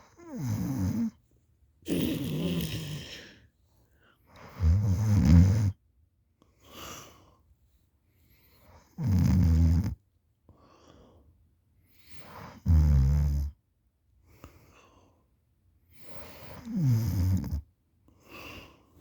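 A sleeping person snoring heavily: about six loud, rough snores come every two to four seconds, with fainter breaths between them. Some of the snores fall in pitch as they go.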